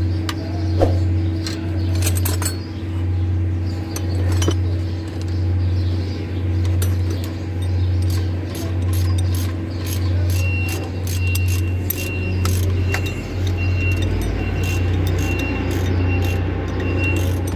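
Metal tools clicking and clinking against the rocker arms and valve gear of a Mercedes truck engine during valve work, over a steady low hum that swells about once a second. A faint high repeating tone joins in the second half.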